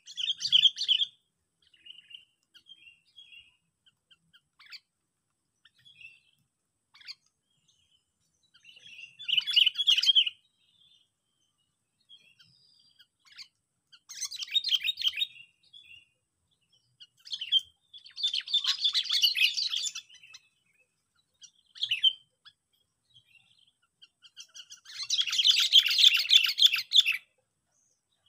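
A sooty-headed bulbul (kutilang) lure bird calling. It gives bursts of rapid chattering chirps every few seconds, each one to three seconds long, with short single chirps between them. The longest and loudest burst comes near the end.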